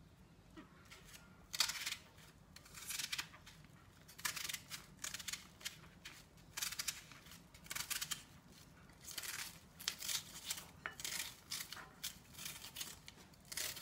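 Raw onion being diced by hand with a small knife, held over a frying pan: crisp cuts in quick irregular runs, the pieces falling into the pan.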